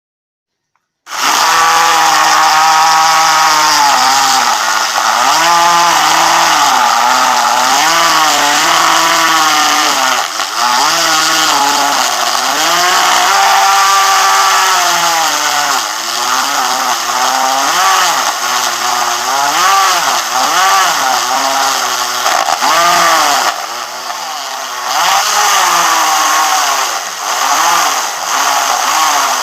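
DIY mini lathe driven by a 775 DC motor on a 24 V supply, running loudly with a high motor whine. The whine starts about a second in and keeps dipping and recovering in pitch as the motor speed changes.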